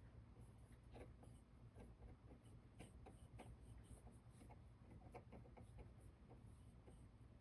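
Faint, irregular scratching and light tapping of a paintbrush dabbing acrylic paint onto a model's wooden foundation, over a low steady hum.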